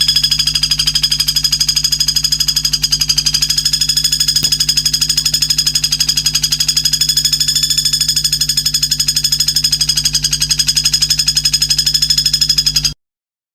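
A songbird's recorded trill for training competition birds: a rapid, even, high-pitched pulsing of about ten beats a second, held for about thirteen seconds and cut off abruptly near the end, over a low steady electrical hum.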